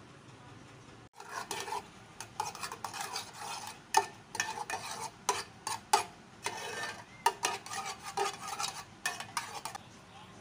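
A metal spoon stirring cream in a metal saucepan, scraping and clinking against the pan's sides and bottom in quick, irregular strokes, with a few sharper clinks. The stirring starts about a second in and stops near the end.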